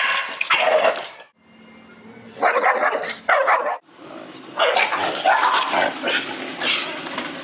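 Dogs barking in a face-off between a leashed pit bull and a tan dog, in three loud spells with short lulls between, the last one the longest.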